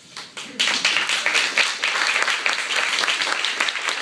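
Audience applauding, breaking out suddenly about half a second in as dense, loud clapping.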